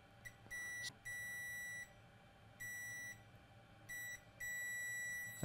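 Multimeter beeper sounding a steady high-pitched tone in several stop-start beeps, the last about a second long, as the probe touches a laptop motherboard component: the meter is signalling a dead short, zero ohms to ground.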